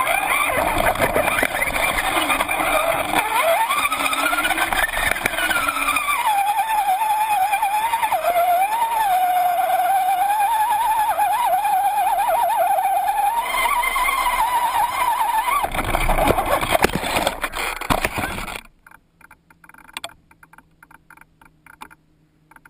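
Axial SCX-10 RC rock crawler's electric motor and gear drive on a 3S LiPo, whining loudly, its pitch rising and falling with the throttle, picked up by a camera mounted on the truck. The whine cuts off suddenly near the end, leaving only a few faint ticks.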